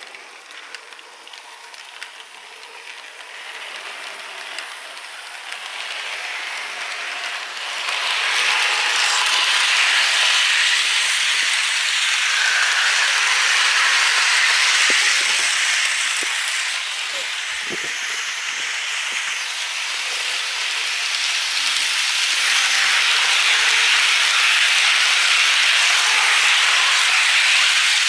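Märklin model trains rolling along the track, a continuous rattling whir of wheels and motor that grows louder about a quarter of the way in, eases off a little past the middle, then swells again.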